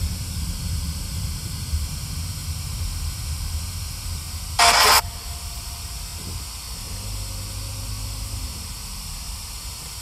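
Car driving, with a steady low engine and road rumble heard inside the cabin under a faint hiss. About halfway through comes a short, loud burst of hissing noise lasting under half a second.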